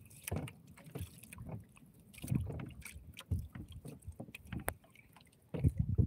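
Water slapping and sloshing irregularly against the hull of a small boat, with a few sharp knocks; the loudest slaps come near the end.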